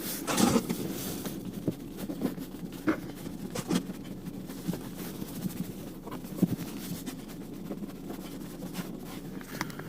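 Soft rubbing and faint, scattered small clicks as a rubber seal strip is pressed by finger into the gap between a car's windshield and dashboard.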